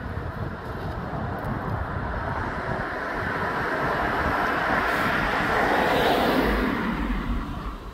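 A passing vehicle's rush of noise, swelling to a peak about six seconds in, dropping in pitch, then fading near the end.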